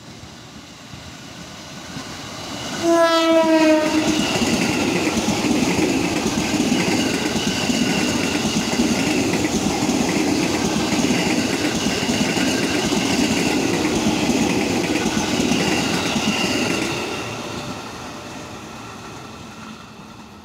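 Ex-JR 205-series electric commuter train sounding one short horn blast about three seconds in, then passing close by with its wheels running over the rails; the passing noise holds loud for about fourteen seconds and then fades away.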